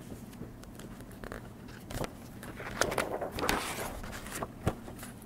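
Soft rustling of paper with a few light knocks and clicks as a hardcover picture book is handled, mostly in the middle of the stretch.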